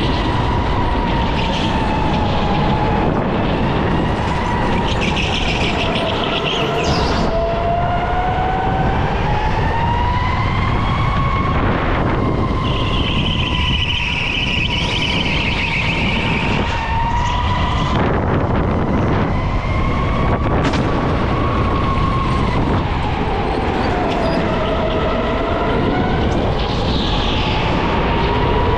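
Electric go-kart motor whining at speed, its pitch rising and falling as the kart accelerates and slows through the corners, over a steady rushing noise.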